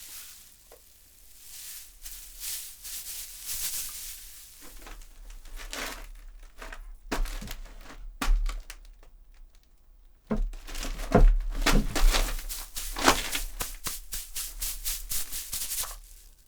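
Foley grass crushed and rustled by hand in irregular crunching bursts, standing in for movement and footsteps through a meadow. The crunching thickens into dense, rapid crackling in the second half.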